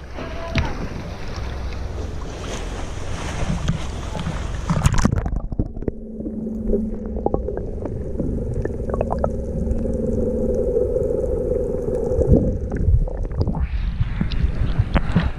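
Tour boat's engine running under a steady rush of wind and water. About five seconds in the hiss drops away, leaving a low, steady engine hum, and the wind and water noise returns near the end.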